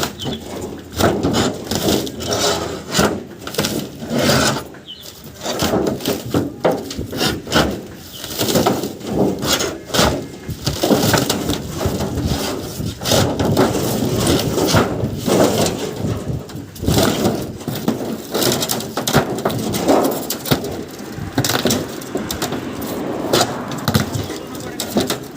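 Irregular knocking, cracking and scraping from a scrapped refrigerator being broken apart by hand.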